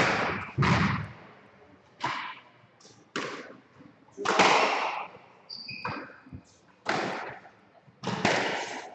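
Squash rally: a squash ball struck by rackets and bouncing off the court walls, about seven sharp, echoing knocks roughly a second apart. Just past the middle comes a brief squeak, which fits court shoes on the wooden floor.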